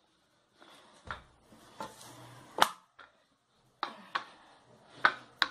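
Long rolling pin rolling out a sheet of black biscuit (cold porcelain) clay on a stone countertop: faint rolling rustle with several sharp, irregular knocks, the loudest about two and a half seconds in.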